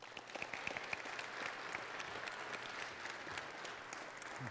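Congregation applauding: many hands clapping together in a steady, dense patter.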